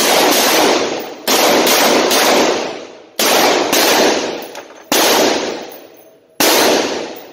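Handgun shots at an indoor range, four in a row about one and a half to two seconds apart, each a sharp crack followed by a long echo in the hall.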